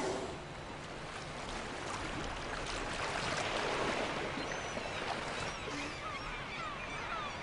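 A gray whale's blow, a brief rush of breath right at the start, then a steady wash of water. Gulls call in short, high, falling cries from about five seconds in.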